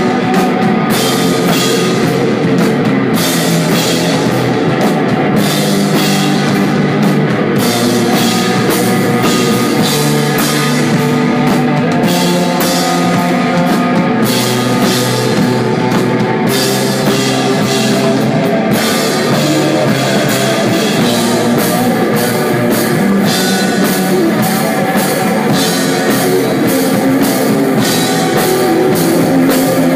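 Desert rock band playing live and loud: electric guitar over a drum kit keeping a steady beat of cymbal and drum hits, with no vocals.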